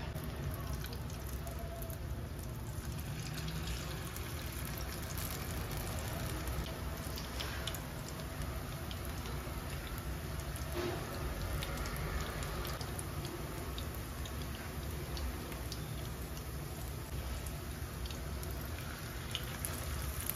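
Spoonfuls of sweet potato leaf, tofu and egg batter sizzling and crackling as they deep-fry in hot oil in a small pan, the crackle thickening from about three seconds in as more batter goes into the oil. A steady low hum runs underneath.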